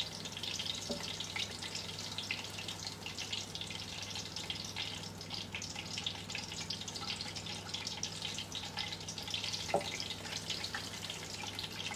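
Aubergine slices shallow-frying in hot oil at about 170 °C, sizzling and crackling steadily as they are turned in the pan. A single light knock of the tongs against the pan about ten seconds in.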